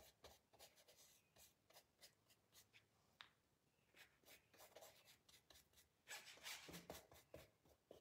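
Faint scratching of a 1/4-inch flat paintbrush stroking brown paint onto a canvas in short strokes, a little louder about six seconds in.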